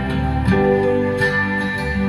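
Instrumental acoustic guitar music played back through a home-theatre center speaker, with plucked notes ringing on.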